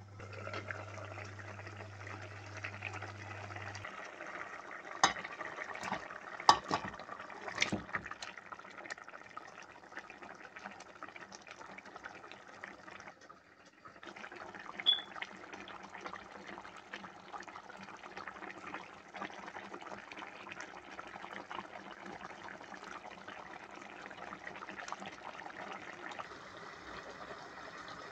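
Fish curry gravy simmering and bubbling in a pan, a steady wet bubbling hiss. A few sharp knocks stand out about five to eight seconds in, and the sound briefly drops away about halfway through.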